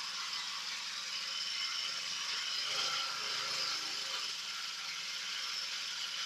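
Multipurpose food grinding machine running steadily, a whir with a light rattle over a low hum.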